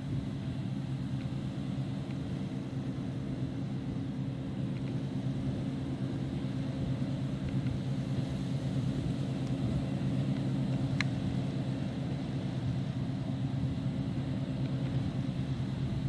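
Claas Lexion 650 combine harvester running steadily as it cuts standing wheat, a continuous deep engine and threshing drone that slowly grows a little louder as it comes closer. One short click about eleven seconds in.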